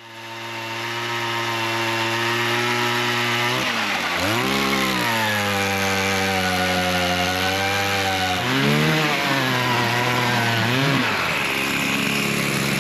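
Small gasoline engine running at high speed. Its pitch dips sharply and recovers three times, about four, eight and a half and eleven seconds in, as if bogging under load or being throttled off and on.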